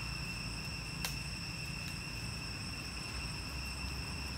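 Steady high-pitched insect drone, with a faint low rumble underneath and a single sharp click about a second in.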